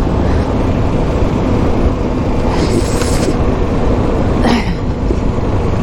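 Motorcycle riding noise: heavy wind rushing over the rider's microphone over a steady engine hum, with two brief hissing gusts in the middle.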